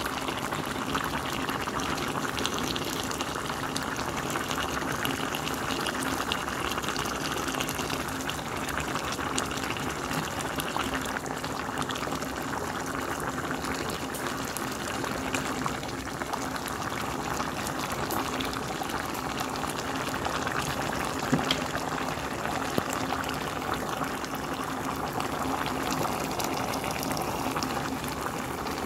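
Pot of green beans, potatoes and ham hock boiling: a steady bubbling of the cooking liquid, with one light knock about two-thirds of the way through.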